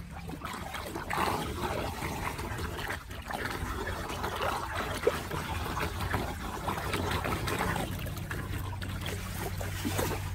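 Floodwater swirling and gurgling down a street drain that has just been cleared of debris, with splashing as a gloved hand works in the water at the drain opening.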